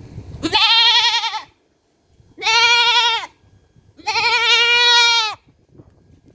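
A goat bleating three times, each call about a second long with a quavering, wavering pitch.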